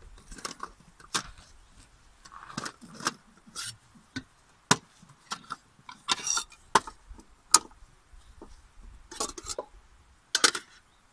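Irregular sharp clicks and light clatter of a nested camping cookset being taken apart and set down on a wooden cutting board: small metal pots, a frying pan and a lid knocking together. Short bursts of rustling from handling bags of food come in between.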